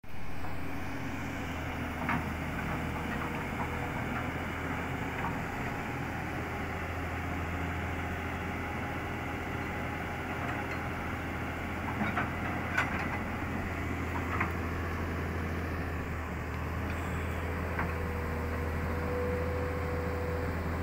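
Tata Hitachi hydraulic excavator's diesel engine running steadily, with a faint whine that grows stronger near the end. A few sharp knocks break in about two seconds in, three around the middle and one more later.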